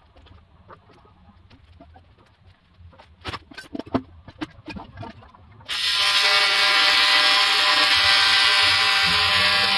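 A few light clicks and knocks, then, a little over halfway through, an AC TIG welding arc on aluminum strikes suddenly and runs with a steady, loud buzz from an ARCCAPTAIN TIG 200P welder.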